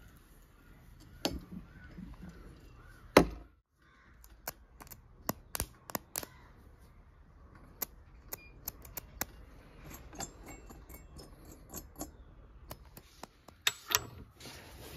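Hand tools clicking and clinking against the metal parts of a car alternator being taken apart. The sharp clicks come scattered throughout, loudest about three seconds in, with another loud pair near the end.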